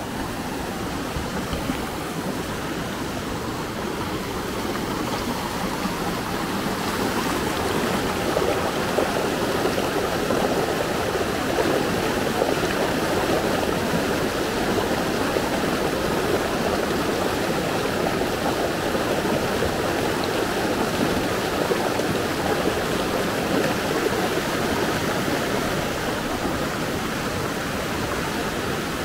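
Fast mountain stream rushing over boulders in white-water rapids: a steady rush of water that grows a little louder about seven seconds in.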